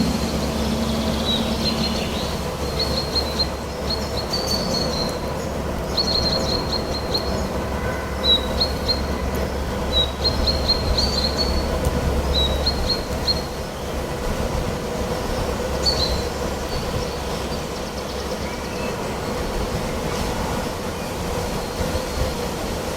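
Songbirds singing short bursts of high chirping notes, repeated every second or two and thinning out after about 16 s, over a steady rumbling noise that eases a little about halfway through.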